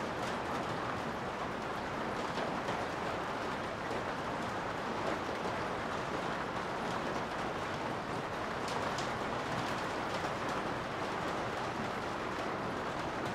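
Steady rain heard from inside a garage: an even hiss with a few sharper drops standing out now and then.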